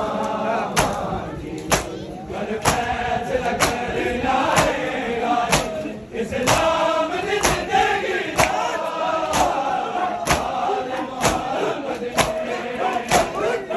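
Matam: a crowd of men beating their bare chests with open palms in unison, a sharp slap about once a second, over voices chanting a lament in time with the strokes.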